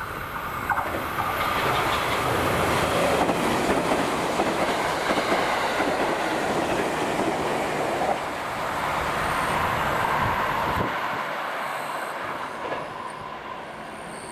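JR Kyushu 787-series electric express train passing close by at speed, its wheels running loud and steady on the rails. About eleven seconds in, the sound drops to a quieter, thinner train running sound.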